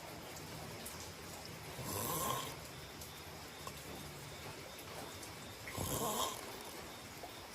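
A person snoring in sleep: two loud snoring breaths about four seconds apart, one about two seconds in and one near the end.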